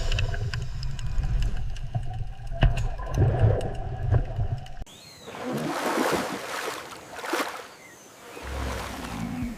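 Dolphin recording: sharp clicks and faint high whistles over a steady low rumble. About five seconds in it cuts abruptly to a different, noisier sound.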